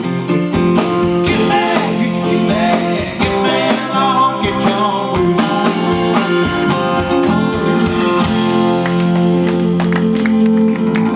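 Live rock band playing an instrumental passage: a guitar lead with bending notes over held bass notes and a steady drum beat.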